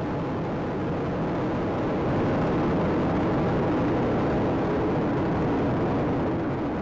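Space Shuttle Atlantis's solid rocket boosters and main engines firing during ascent: a steady, dense rushing rumble, a little louder in the middle.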